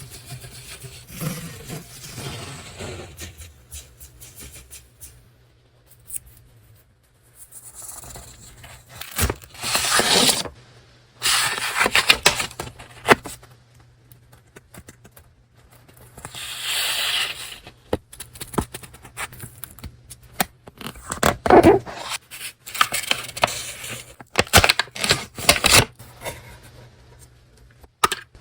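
Paper packaging being handled and torn open: irregular bursts of tearing and rustling paper, with small clicks and taps in between.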